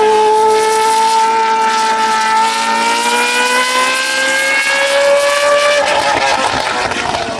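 Zytek 3.4-litre V8 of a two-seater formula race car running hard at high revs, its note climbing slowly as it pulls through a gear. About six seconds in the steady note breaks off into a rougher, crackling sound as the throttle comes off or the car shifts.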